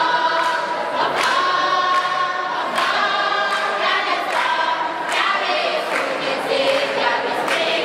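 A youth choir of boys and girls singing together, with a sharp clap every second or so.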